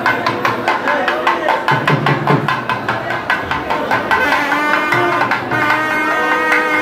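Temple procession music of drums and a reed pipe, typical of nadaswaram and thavil: fast, steady drumming, joined about four seconds in by long held pipe notes.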